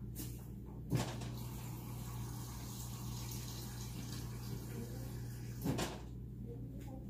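Kitchen tap running for about five seconds as a glass measuring cup is filled with water, with a knock as it starts and another as it stops. A steady low hum lies underneath.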